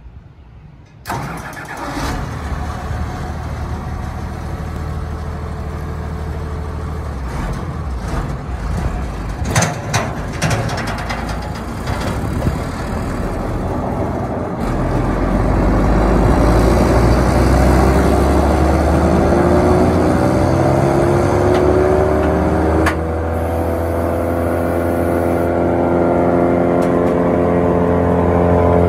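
Morbark Hurricane 18 drum chipper's engine starting about a second in, then running steadily. From about fifteen seconds in it gets louder and a whine climbs in pitch as the machine speeds up, then holds steady at the higher speed.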